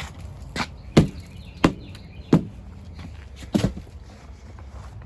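Footsteps walking at a steady pace, about one step every two-thirds of a second.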